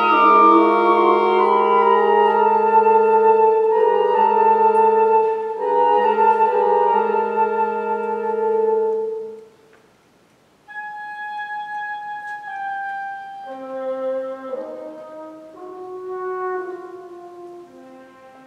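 Woodwind quintet of flute, oboe, clarinet, bassoon and French horn playing live. A loud sustained chord is held for about nine seconds and fades out. After a brief pause a quieter passage follows, made of held notes that change pitch and pass between the instruments.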